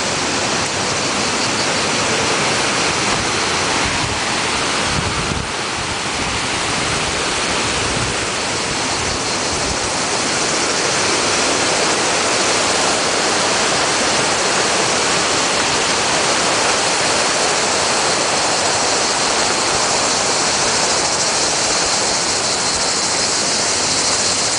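Waterfall pouring nearby: a loud, steady rush of water with no break.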